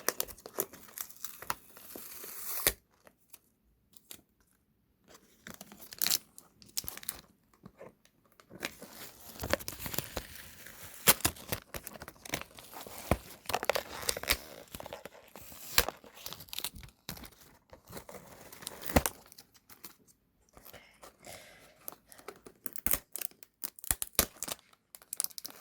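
Packaging of a blind-box doll being torn open and crinkled by hand: irregular stretches of tearing and rustling with sharp little crackles, broken by a silent pause of about two seconds a few seconds in.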